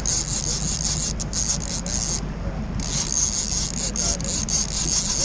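Fishing reel's drag paying out line in a fast high rasp as a hooked sturgeon pulls, breaking off for a moment about two seconds in. The boat's 350 engine runs low and steady underneath.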